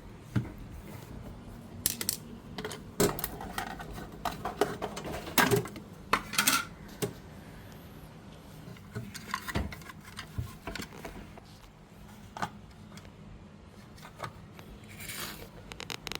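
Irregular metallic clinks, taps and knocks, as of tools and small metal parts being handled during a fridge repair, loudest around two and between five and seven seconds in, over a faint steady hum.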